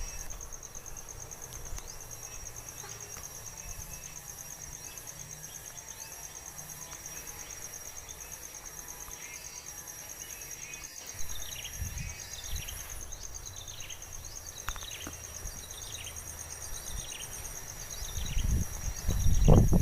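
Insects trilling in a steady, high, fast-pulsing drone, typical of crickets. From about halfway a series of short falling chirps repeats every half second or so, and near the end a loud low rumbling sets in.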